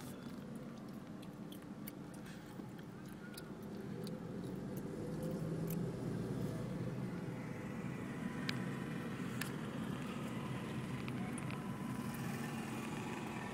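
Motor vehicle running, growing louder about four to five seconds in and then holding steady, with scattered light clicks and knocks.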